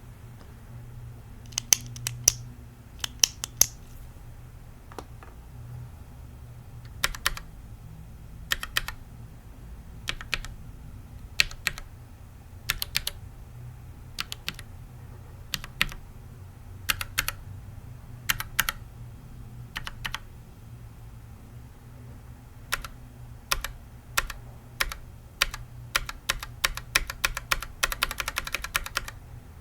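Individual key presses on a Think 6.5 hotswap mechanical keyboard with no dampening, fitted with a mix of switches (Zealios, Retool Cherry MX Black, Tealios, Gateron Yellow), some stock and some lubed. Each press and release gives a sharp clack. The presses come in small groups about every second and a half, quicken later, and end in a quick run of fast taps.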